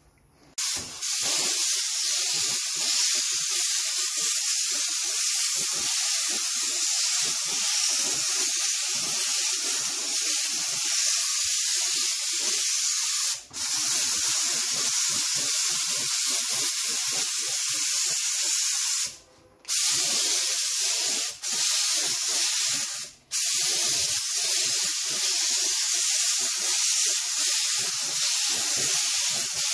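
HVLP gravity-feed spray gun spraying gray automotive basecoat, laying down the first coat: a steady hiss of air and paint. It cuts off briefly four times; the longest break, about a second, comes about two thirds of the way through.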